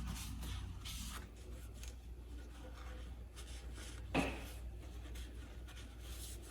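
Brush scrubbing carbon deposits out of a throttle body after a spray of carburetor cleaner: light, uneven rubbing strokes, with one brief knock about four seconds in, over a low steady hum.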